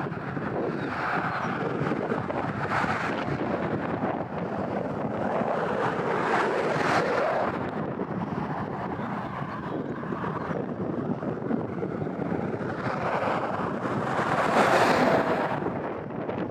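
Strong wind gusting across the microphone, a rushing noise that swells and eases, with the biggest gusts about seven seconds in and near the end.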